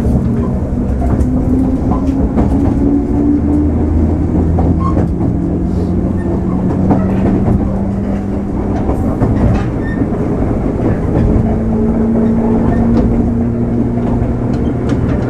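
JR West 103 series electric train heard from inside the carriage while running. Its traction motor whine rises in pitch over the first few seconds and then holds steady over the rumble of the wheels, with scattered clicks and knocks from the wheels on the rails.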